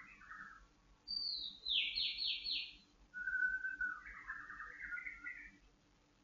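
White-rumped shama (murai batu) singing in clear whistled phrases: a short phrase at the start, then a high whistle followed by four quick falling sweeps, then a held whistle that breaks into a run of varied notes.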